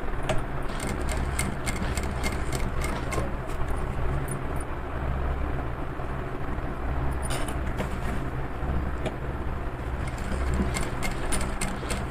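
Industrial single-needle sewing machine running: a steady motor hum, with runs of rapid clicking as it stitches fabric strap strips, near the start, about two-thirds through and near the end.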